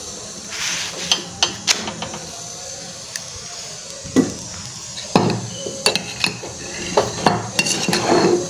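Metal kitchen utensils and cookware clinking and knocking at a gas stove, over a steady burner hiss. The sharp clicks come sparsely at first and grow busier after about five seconds.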